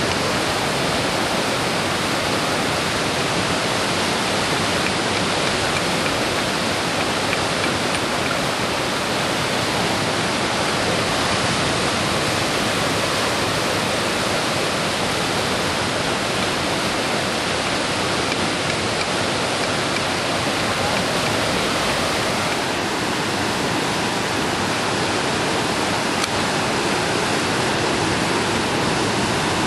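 Fast-flowing river water rushing, a steady, even rush with no breaks.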